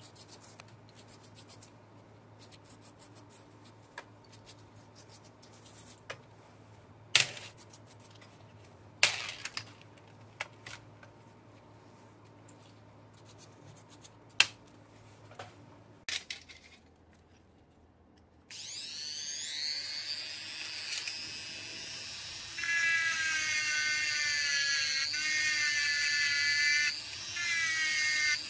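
A bristle brush scrubs small metal drill parts in a plastic tub of cleaning fluid, with a few sharp knocks. About two thirds of the way in, a handheld rotary tool starts up and runs against the drill motor's brush-holder assembly, its pitch wandering under load and growing louder a few seconds later.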